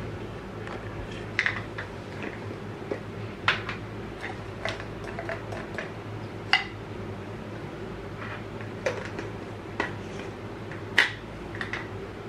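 Dishes and cutlery clinking now and then, about a dozen sharp, irregularly spaced clinks over a steady low hum.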